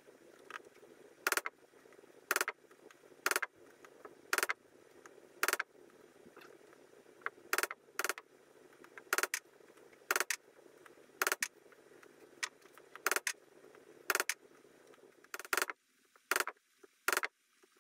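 Hammer striking a C-frame dimpling tool, setting dimples in the thin aluminium skin of an RV-10 rudder: sharp metallic blows, about one a second.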